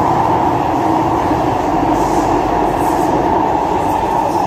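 Singapore MRT metro train running at speed through an underground tunnel, heard from inside the carriage: a loud, steady running noise with a steady hum.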